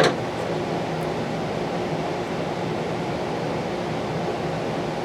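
Steady mechanical room hum, like a fan or air-conditioning unit running, with one sharp small click right at the start and a faint tick about a second later.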